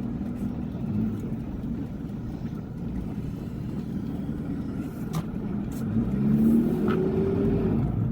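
Toyota Hilux driving, heard from inside the cab: a steady engine and road rumble, with the engine note rising as the truck accelerates about six seconds in.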